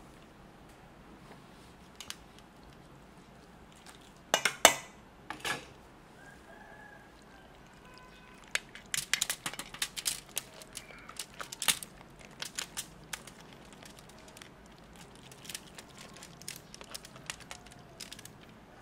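Aluminium foil crinkling, with clicks and soft knocks, as sauced seafood and noodles are tipped out of a metal pan onto a foil-lined tray. A loud crackle comes about four seconds in, then a long run of small crinkles and clicks.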